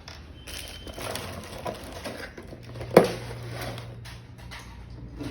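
Hands handling the parts of a progesterone test kit: rustling and small clatter of packaging and plastic pieces, with one sharp knock about three seconds in. A low steady hum sets in just before the knock and fades out near the end.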